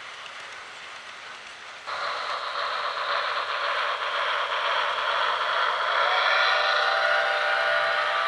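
Model trains running on a layout: wheels rolling on the track with a motor whine. The sound jumps sharply louder about two seconds in and keeps building as a train comes close.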